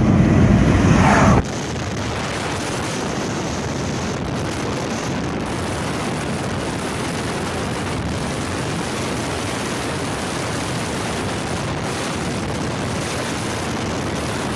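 Steady road and wind noise inside a car cruising at highway speed, about 85 km/h. A loud low rumble fills the first second and a half and cuts off suddenly.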